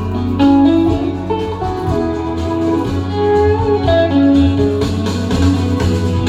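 Instrumental passage of a folk-rock song: guitar and fiddle playing a melody over a steady bass line.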